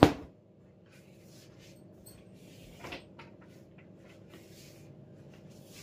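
One sharp bang right at the start, then a faint steady hum with a few soft rustles and a smaller knock about three seconds in.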